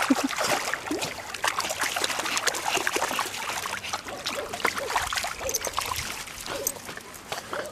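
Jack Russell terriers splashing and wading through shallow water, a run of small irregular splashes and trickling water.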